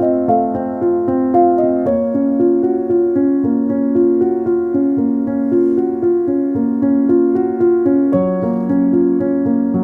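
Background piano music, a steady run of held notes over chords.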